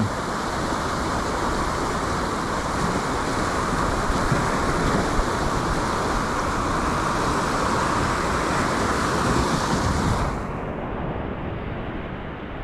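Sea surf surging and breaking over the boulders of a rock seawall, with wind on the microphone, as one steady rush of noise. About ten seconds in it drops and turns quieter and more muffled.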